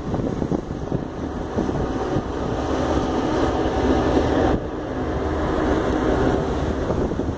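Steady wind buffeting the microphone over the rush of sea water along a moving ship's side.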